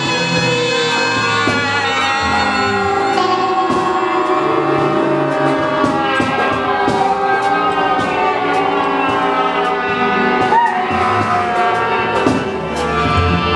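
Large mixed ensemble of saxophones, guitars, strings, accordion, vibraphone and drum kit playing a dense layer of long, overlapping held notes, with light cymbal ticks and a quick pitch swoop about ten seconds in.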